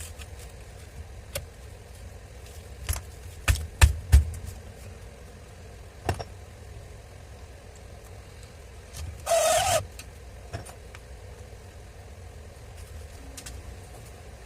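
Scattered clicks and knocks of tools and parts being handled, several close together about three to four seconds in. A short noisy burst of about half a second comes a little past the middle.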